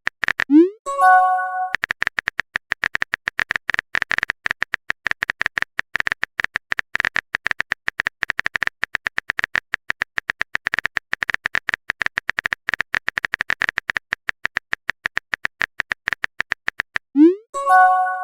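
Rapid, irregular clicks of a phone keyboard typing sound effect. About half a second in and again near the end, a short rising swoop followed by a brief chime of several tones, a message sent or received alert.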